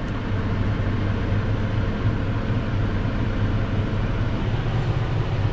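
John Deere tractor's diesel engine running steadily, a constant low hum with no change in speed.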